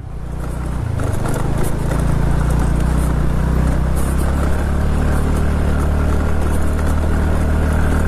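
TVS Ntorq 125 scooter's single-cylinder engine running steadily under way, growing louder over the first couple of seconds as the scooter picks up speed, with a few faint clicks over the top.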